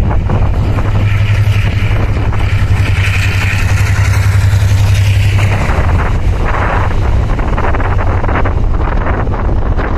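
Taiwan Railway R100-class diesel-electric locomotive passing close, its diesel engine running with a steady low drone that falls away a little over halfway through. The unpowered electric multiple unit cars it tows then roll past with rattling wheel noise on the rails.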